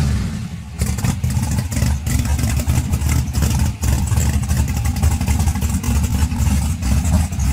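Twin-turbo drag car engine dropping back from a rev and then idling with a choppy, uneven beat.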